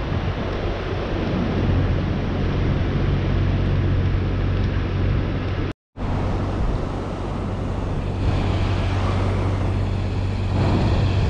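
Wind buffeting the microphone over the wash of breaking surf: a steady, loud, noisy rumble, cutting out for a moment a little past the middle.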